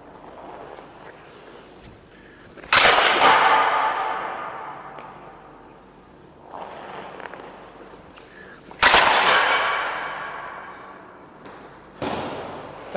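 Two slap shots with a Warrior Novium hockey stick, about six seconds apart. Each is a sharp crack of stick on ice and puck that echoes around the rink for a few seconds. Softer knocks come between the shots and near the end.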